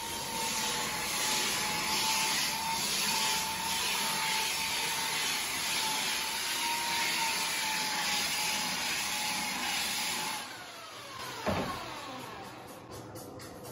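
Handheld belt sander running on a plywood sheet: a steady hiss of abrasive on wood over a motor whine. It is switched off about ten seconds in and the motor winds down with a falling whine, followed by a short knock.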